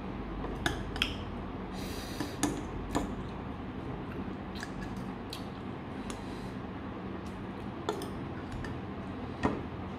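A metal spoon clinking and scraping against a stainless steel bowl and a ceramic bowl while eating, with about six short, sharp clinks spread through, the last near the end the loudest, over a steady low hum.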